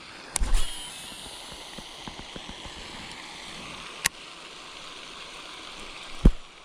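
Steady rush like running water, broken by a thump about half a second in, a sharp click about four seconds in, and a heavier thump near the end.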